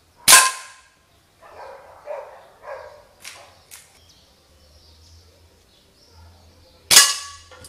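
Two air rifle shots, about six and a half seconds apart. Each pellet strikes an old aluminium Rochedo pan with a sharp metallic clang that rings on briefly, denting the pan without piercing it. A dog barks a few times in between.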